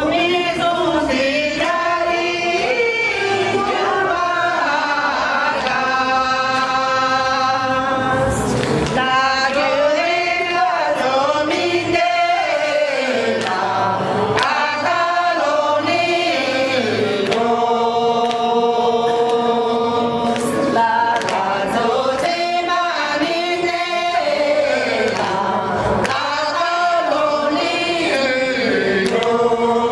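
A group of men and women singing together, a Sherpa traditional dance song in long held phrases with short breaks between them and no instruments.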